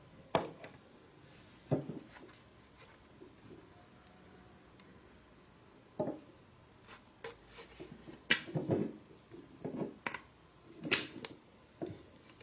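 Handling noise: irregular sharp clicks and knocks, a couple near the start and then a quicker run of them from about six seconds in.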